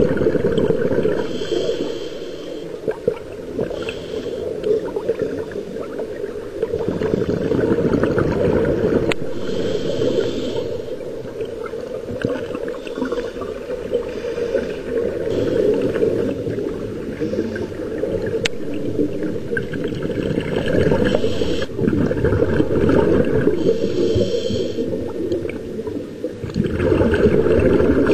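Scuba divers breathing through their regulators underwater: bursts of exhaled bubbles every few seconds over a steady low rush, heard through the camera's underwater housing.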